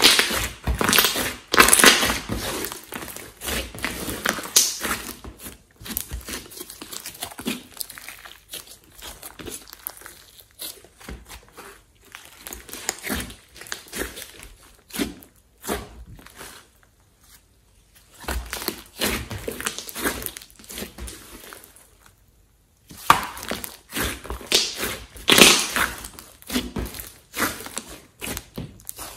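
Large lump of glossy slime being squeezed, kneaded and pressed by hand, giving sticky squishing and popping with many small clicks in uneven bursts. The sound briefly stops twice, in the second half.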